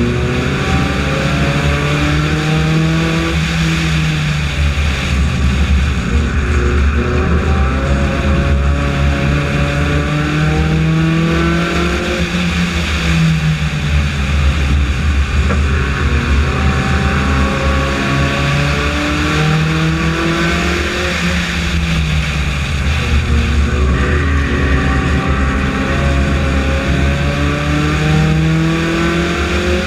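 Four-cylinder Honda F4-class race car's engine at racing speed on an oval: the revs climb along each straight and drop as it lifts for the turns, a cycle about every eight seconds, over steady wind rush. Other cars' engines mix in.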